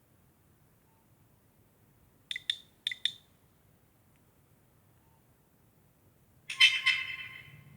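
Nokia 6233 mobile phone playing short alert tones through its small speaker: two quick pairs of beeps a couple of seconds in, then about six and a half seconds in a louder tone of several notes at once that fades away over about a second.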